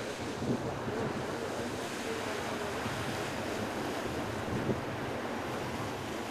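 Wind on the microphone over choppy river water: a steady rushing noise.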